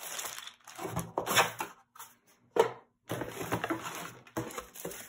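Plastic bag crinkling and cardboard packaging rustling and scraping as packed parts are lifted out of a box, with one sharp knock about two and a half seconds in.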